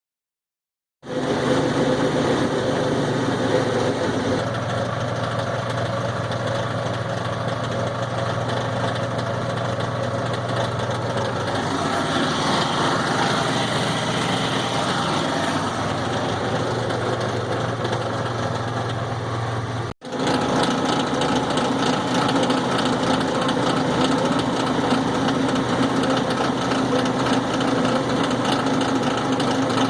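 Kawasaki Mule 4010 utility vehicle running steadily with an abnormal drone and vibration from its driveline, the noise that followed a crankshaft recall repair and was traced to incorrectly clocked drive shaft universal joints. The sound starts about a second in and breaks off for an instant about two-thirds of the way through.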